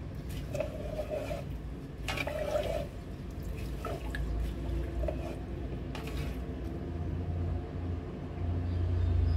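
Rice and yellow coconut-milk liquid sloshing and swishing as they are stirred with a plastic rice paddle in a rice cooker's inner pot, with a few light knocks and a steady low hum underneath.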